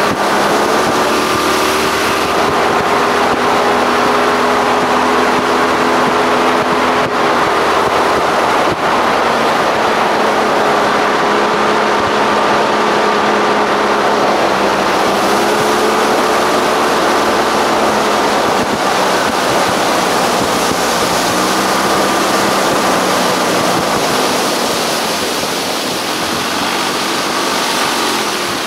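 Boat outboard motor running at speed, with water and wind rushing past the hull; its pitch shifts down a little past the middle and it grows quieter near the end.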